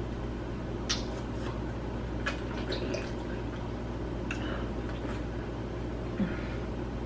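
Spoons scraping and scooping icy frozen lemonade from cups, with short wet eating and slurping sounds every second or so, over a steady low hum.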